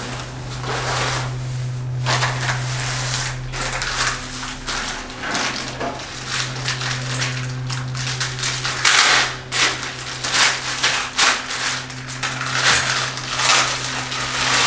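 Packing wrap crinkling and rustling in irregular bursts as it is handled and pulled from roof-rack bars, with a steady low hum underneath.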